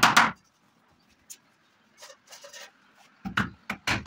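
Hammer tapping a steel hinge on a wooden frame: a strike right at the start, a pause with faint handling noise, then a few quick strikes again near the end.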